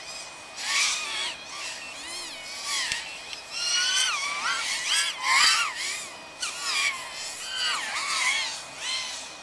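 FPV racing quadcopter motors whining, their pitch sweeping up and down again and again as the throttle is punched and eased, under a faint steady high tone.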